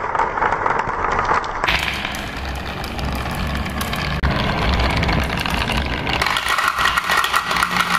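Marbles rolling and clicking down a curved plastic marble-run track, then, after an abrupt change about two seconds in, rolling and knocking through the curved pockets of a wooden wave track, with a steady rolling rumble under many small clicks.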